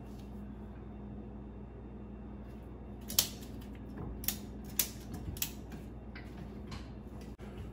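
A few sharp clicks and knocks, about five of them in the second half, over a steady low hum. These are the parts and hand tools being handled while a Mercruiser Alpha One stern drive is worked up into position on the boat.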